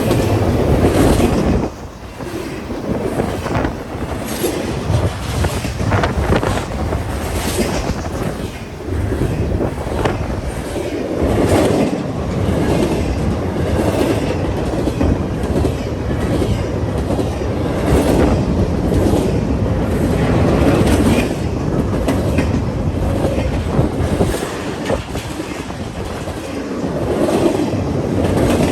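A train rolling by, its wheels clicking and clattering over the rail joints in an irregular run of sharp clicks.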